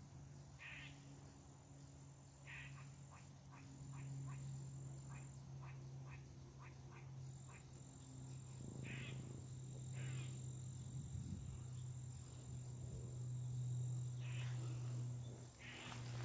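Animal calls outdoors: scattered short calls and a run of short clicking calls, a few a second, over a steady low hum and a thin high tone.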